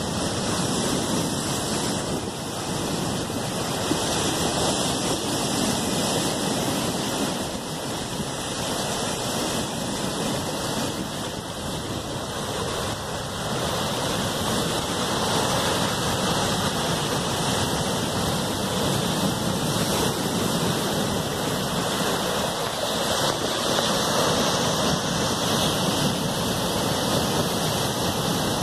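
Steady rushing water: surf breaking on a stony beach, blended with a shallow river running over stones, swelling and easing slowly.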